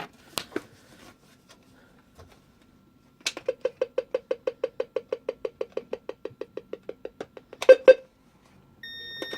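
Weather alert radio beeping. After a few faint clicks, a rapid even run of short beeps at about seven a second lasts some four seconds and ends with two louder beeps. Near the end a steady, higher alert-reminder beep starts.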